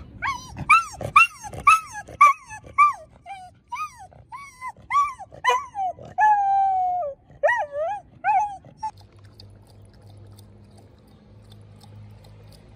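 An intact male corgi howling and whining: a string of short rising-and-falling yelping calls, one longer held howl about six seconds in, then a few more calls that stop about nine seconds in. It is the howling of an unneutered male excited by females during the mating season.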